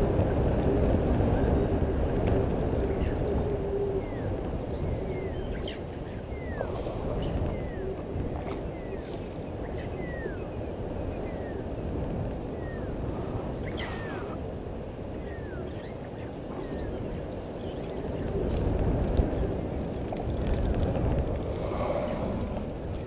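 Dusk bush ambience at a waterhole, from night insects and frogs. A high chirp repeats evenly a little more often than once a second, with scattered short falling calls and a low, steady rumbling background.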